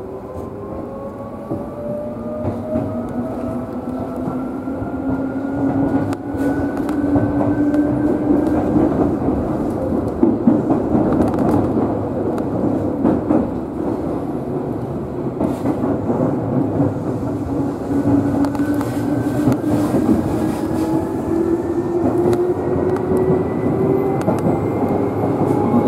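Seibu 2000 series electric commuter train running, heard from inside the cab: traction motor whine rising steadily in pitch as the train accelerates, with a second rise starting about two-thirds of the way through. Under it is the steady rumble of wheels on rail, with scattered sharp clicks.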